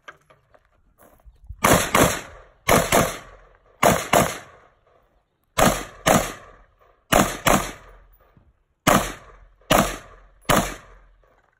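About a dozen gunshots in quick pairs and singles, each with a short echoing tail, fired during a timed shooting stage.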